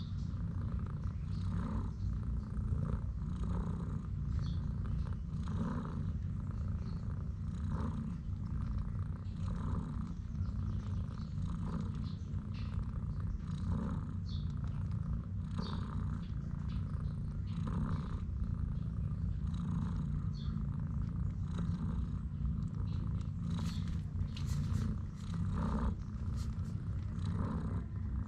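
Nursing mother cat purring steadily, the purr swelling and easing in a rhythm about every two seconds. A few faint clicks near the end.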